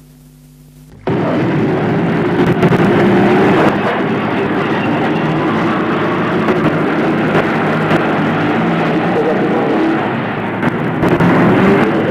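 Loud, steady vehicle noise that starts suddenly about a second in, with scattered crackles through it.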